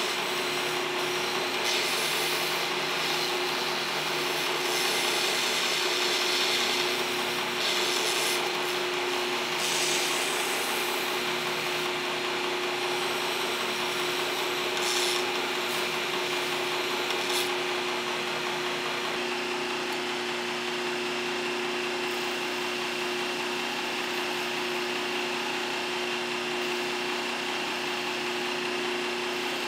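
Knife-making belt grinder running with a steel knife blank pressed against the moving abrasive belt at the contact wheel. A steady motor and belt hum sits under the hiss of the belt grinding metal. The grinding hiss gets lighter about two-thirds of the way through.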